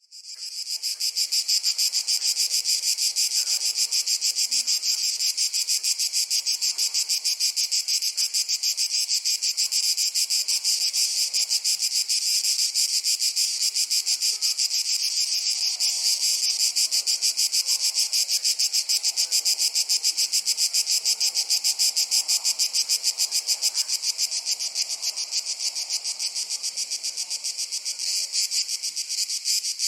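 A chorus of crickets chirping in a rapid, unbroken pulse, fading in over the first second and then holding steady, with a faint rustle of wind beneath.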